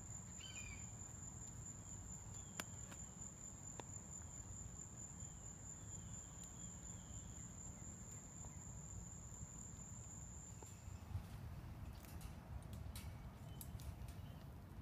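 An insect trilling in one steady, unbroken high note, which cuts off about ten seconds in. A few faint clicks sound over a low background murmur.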